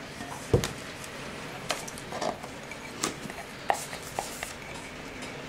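Kitchen utensils scraping and tapping against ceramic bowls as pesto is scraped out of one bowl into another: scattered clicks and knocks, the loudest a dull knock about half a second in.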